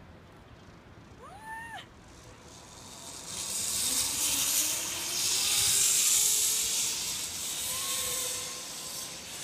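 Zip-line trolley running along the steel cable: a hiss that builds from about three seconds in and peaks a few seconds later, with a faint whine rising in pitch as it gathers speed. Before it, about a second and a half in, comes one short cry that rises and falls.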